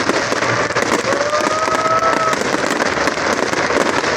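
A fireworks display going off: a dense, continuous crackling of many small pops and bangs.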